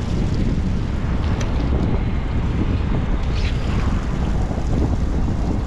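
Wind buffeting the microphone on a sportfishing boat, over a steady low rumble of the boat and the sea.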